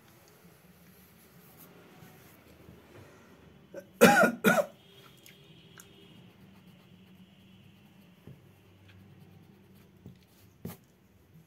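A person coughs twice in quick succession about four seconds in. Faint rubbing of an eraser on drawing paper follows.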